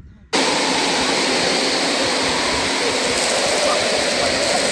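Steady wind blowing across the microphone in the cold desert, a strong even rush of noise, after a brief drop-out at the very start.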